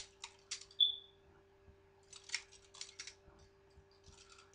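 Butterfly knife (balisong) being flipped: its metal handles click and clack against each other and the blade in quick clusters, with one short metallic ping about a second in.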